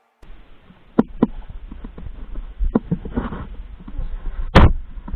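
Handling noise on a motorcycle-mounted action camera as it is moved: scattered knocks and rubs over a low rumble, with one loud sharp knock near the end.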